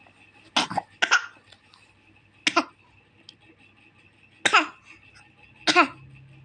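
A baby's pretend coughs: five short voiced coughs, the first two close together, the rest spaced one to two seconds apart.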